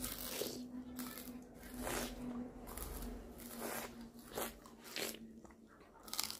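A puppy crunching and chewing on fibrous plant scraps, with irregular crunches coming a few times a second.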